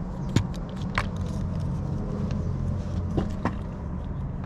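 A steady low mechanical hum, with a few sharp clicks and taps from parts and tools being handled.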